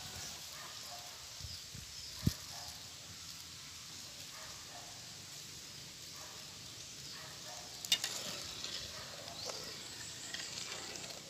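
Coconut milk heating in a wide metal wok over a wood fire, giving a faint steady sizzle, with two sharp clicks, one about two seconds in and one near eight seconds, and a metal spoon stirring near the end. It is the coconut milk being brought up to heat for biko.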